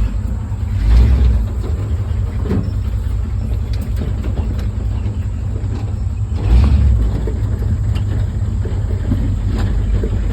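Low, steady rumble of a farm vehicle's engine running as it drives slowly across a field, swelling louder about a second in and again past six seconds.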